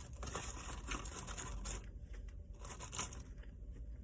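Faint rustling and crinkling of paper take-out food packaging, with a few small crackles, busier in the first couple of seconds and quieter after.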